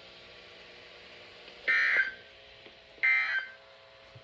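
Two short bursts of NOAA Weather Radio SAME digital data tones, a bit over a second apart, the first about a second and a half in, over faint receiver hiss: the end-of-message code that closes the weekly test broadcast.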